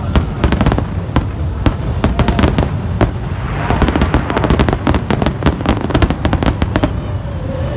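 Fireworks going off: a rapid string of sharp bangs and crackles over a low rumble, thickest from about four to seven seconds in, then thinning out near the end.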